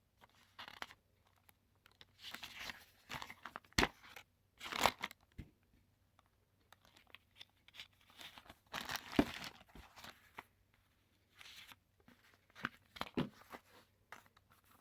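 Paper instruction booklet being handled and unfolded one-handed: irregular rustling and crinkling of paper, with a couple of sharp clicks about four and five seconds in.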